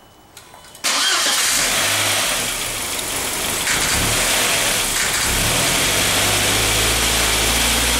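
1999 VW Passat 1.8-litre turbo four-cylinder engine starting about a second in, then running rough with a light hammering or knocking. The knock is the misfire the car had before, a fault later traced to a failing mass air flow sensor.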